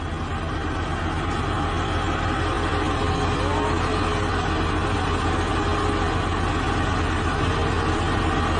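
Skid-steer loader's engine running steadily while the machine sits stuck, tipped nose-down onto its forks in mud.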